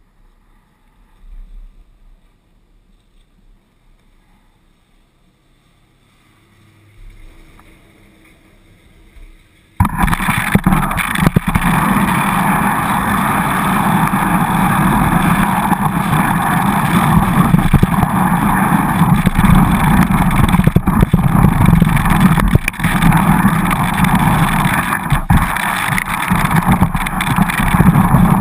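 Quiet chairlift ride with a few faint knocks. About ten seconds in, a loud, steady rush starts abruptly: skis sliding over packed snow, with wind buffeting the microphone, as the skier heads downhill.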